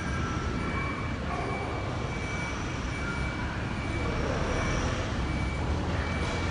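City bus engines running as a bus pulls slowly into its stop: a steady low rumble that grows a little louder about four seconds in, with faint high tones that come and go.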